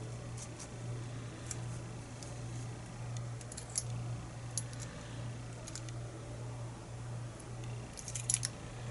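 Light, scattered metallic clicks and taps of a shim and small tools working against a lock cylinder while its core is being worked out, with a quick cluster of clicks near the end. A steady low hum runs underneath.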